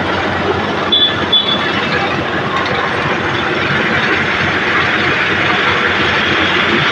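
Heavy road-paving machinery running with a steady mechanical rattle and clatter, and two short high metallic squeaks about a second in.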